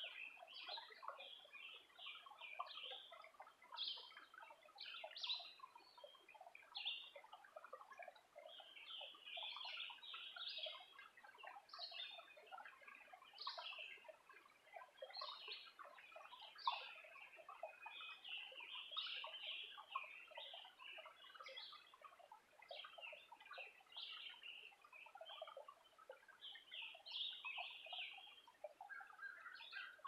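Faint chorus of several woodland songbirds, short high chirps and song phrases overlapping one after another without pause.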